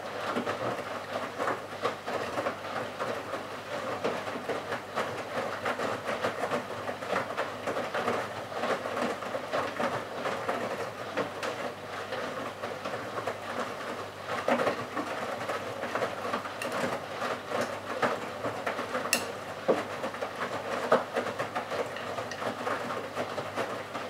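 Bosch Serie 6 WAQ283S1GB front-loading washing machine tumbling a small load of laundry in its drum: a steady churning of many small knocks over a low motor hum, with one sharp click near the end.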